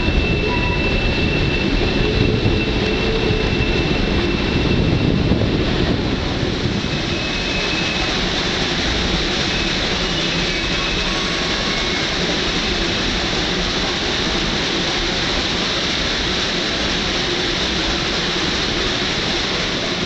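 Two Shay geared steam locomotives working a train up a grade, heard from an open passenger car: a steady, loud rumble of the train, heaviest in the first six seconds, with thin high wheel squeals in the first few seconds and a few brief ones later on the curve.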